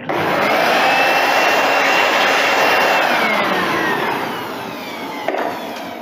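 Electric air blower blowing over a dehumidifier's mesh air filter: a loud rush of air with a motor whine that climbs as it spins up, holds, then falls away after about three seconds as the motor winds down. A single knock near the end.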